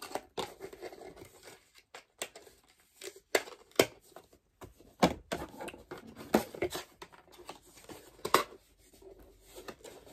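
A small perfume box being handled and opened by hand: irregular scraping and rustling of packaging, with a few sharp taps or clicks.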